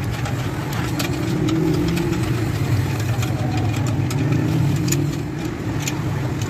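An engine running steadily with a low, slightly wavering drone, and scattered light metallic clicks from a spanner turning a nut.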